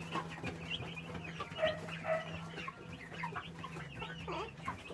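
Chickens clucking and chirping in short, scattered calls, over a low steady hum.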